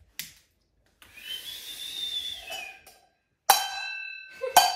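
A breathy whistle that rises and falls over about two seconds, imitating a firework rocket going up. It is followed by two sharp clangs on a small metal saucepan standing in for the banger, each one ringing on with a metallic tone.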